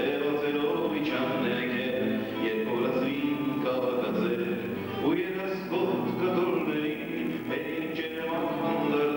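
A man singing a song while strumming a nylon-string classical guitar, his voice carried by a microphone. The sound is dull, with almost no treble.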